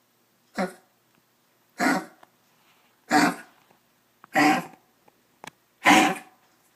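Dog with kennel cough coughing: five harsh hacking coughs, each a short burst, about a second and a quarter apart, the first one weaker than the rest.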